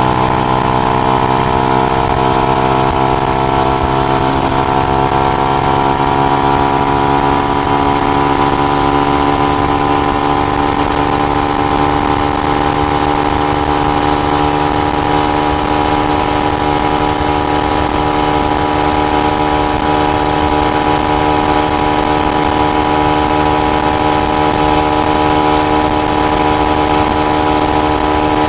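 Benelli BN125's 125 cc single-cylinder four-stroke engine running through its original exhaust with the dB killer fitted. Its note eases slightly lower in the first few seconds, then holds steady revs.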